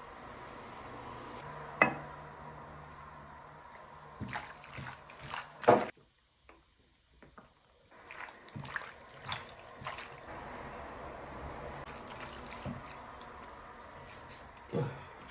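Water splashing and dripping, with scattered clicks and knocks; it drops off briefly about six seconds in.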